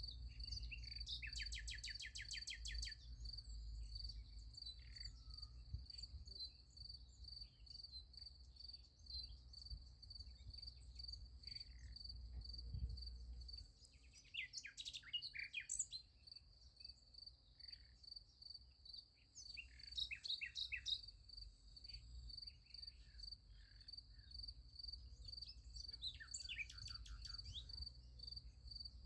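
Crickets chirping in a steady, even pulsing trill, with birds calling over it: three rapid trills, near the start, in the middle and near the end, and a burst of chirps about halfway through.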